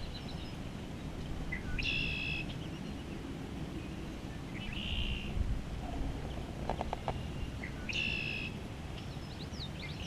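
A songbird singing a short buzzy phrase, repeated about every three seconds, over a steady low outdoor rumble, with a few quick clicks about two-thirds of the way through.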